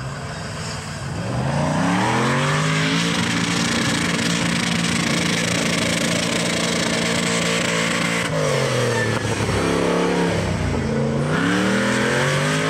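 Mud buggy's engine revving hard. It climbs to high revs about a second in and holds there for several seconds, then drops off, is blipped up and down, and climbs again near the end.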